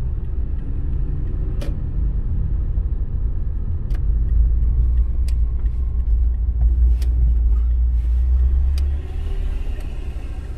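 Low rumble of a car driving, heard from inside the cabin. It grows louder about four seconds in and eases near nine seconds, with a few faint clicks.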